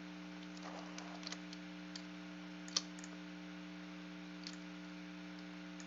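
A few faint, scattered computer mouse clicks, one sharper click near the middle, over a steady low hum.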